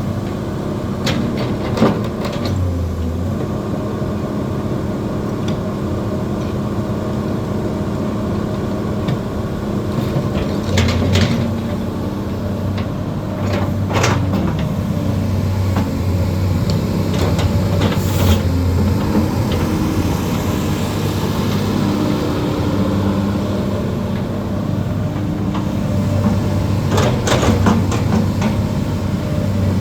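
Hyundai Robex excavator's diesel engine running steadily, its note shifting now and then, with several sharp metallic knocks over it.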